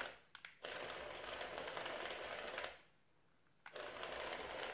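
Small electric gear motors and plastic caterpillar tracks of a remote-controlled building-block robot running in three spells, stopping briefly about half a second in and again for about a second near the three-second mark.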